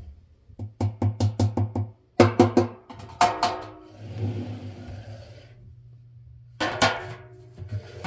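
Stainless steel washing machine drum clanking and ringing as it is rocked and turned by hand: runs of quick metallic knocks, about five in a row a second in, a denser cluster a little later and another group near the end.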